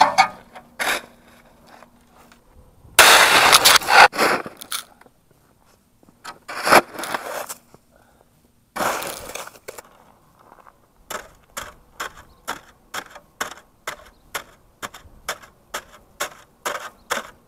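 Snow shovel scraping and pushing through snow in a few long strokes, then chopping into a packed snowbank in quick, even stabs, about two or three a second, through the second half.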